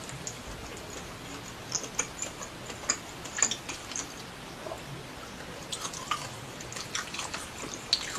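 Close-miked eating: wet chewing and smacking mouth clicks in short, irregular bursts.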